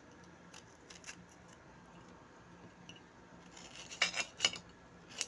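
Knife cutting a green bell pepper on a plate: a few faint crisp cuts, then a cluster of sharp clicks about four seconds in as the blade strikes the plate.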